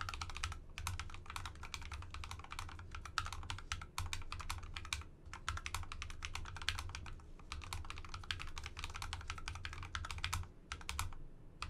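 Typing on a TORN split mechanical keyboard with soft Akko Rose Red linear switches: quick runs of keystrokes broken by short pauses.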